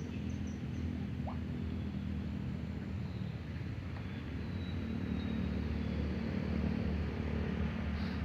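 Small boat engine running steadily with a low hum, with a few faint, short high chirps.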